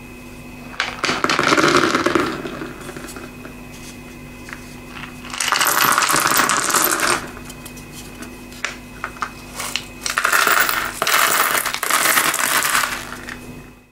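Beads poured out of a bowl onto a hard floor three times, each pour a clattering, rattling cascade lasting a second or more. The first pour, about a second in, is large round acrylic beads. The second, about five seconds in, is clear acrylic heart and star beads. The longest, from about ten seconds to near the end, is small metal charms and spacer beads.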